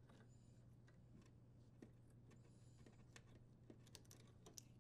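Near silence: faint small clicks and rustles of hands handling electrical wires as plastic wire nuts are untwisted and the wires pulled apart, over a low steady hum.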